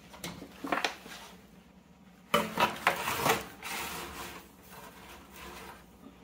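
Disposable aluminium foil pan scraping and rattling on a wire oven rack as it is slid into the oven. A couple of light knocks come about a second in, and the scraping is loudest for about two seconds in the middle.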